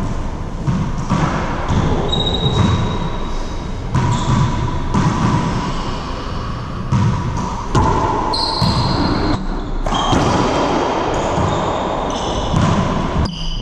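Racquetball bouncing on a hardwood floor and being struck, sharp knocks echoing off the walls of the enclosed court, with brief high squeaks of sneakers on the floor.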